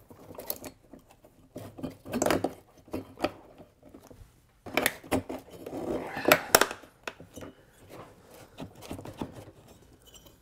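Finned cylinder of a two-stroke leaf blower engine being worked up off its piston by hand, tight on there. Scraping and clinking of the cylinder against a plastic piece rubbing on it, in a few short bursts with clicks.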